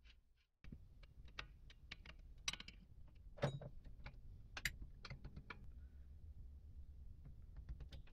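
Irregular small metallic clicks and taps from handling the steel parts of a hydraulic floor jack as a spring, pin and handle socket are fitted by hand, starting about two-thirds of a second in. A few louder knocks stand out, the strongest about three and a half seconds in.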